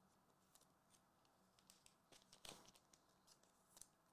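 Near silence, with faint scattered clicks and rustles of trading cards being handled and slid into plastic sleeves. The loudest rustle comes about two and a half seconds in.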